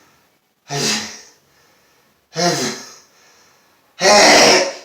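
A man's two short, sharp voiced catches of breath, then a loud sneeze near the end, set off by pepper sniffed up his nose.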